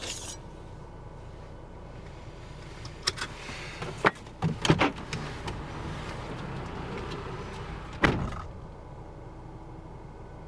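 Car door sounds over a low steady hum: latch clicks and thumps between about three and five seconds in, then a door shutting with a single thump about eight seconds in.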